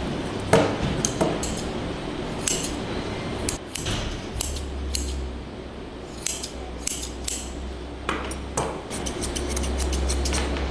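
Small grooming scissors snipping a Persian cat's long fur in short, irregular snips, over a low hum that comes and goes.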